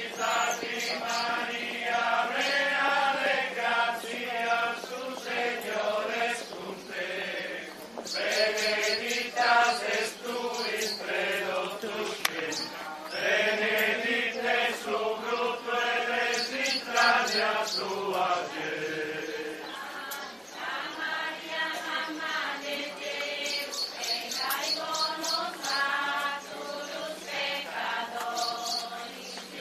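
Group of voices singing a religious chant together as they walk in procession, in long phrases with brief pauses between verses.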